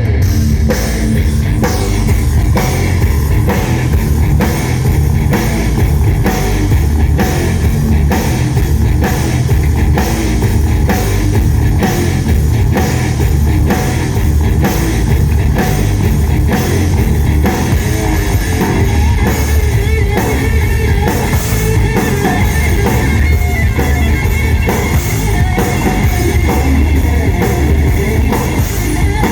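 Live rock band playing loud, heavy rock on drum kit and electric guitar, with a steady driving drum beat throughout.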